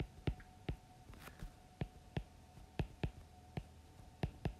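Stylus tip tapping on a tablet screen while numbers are handwritten: about a dozen short, irregular taps over a faint steady hum.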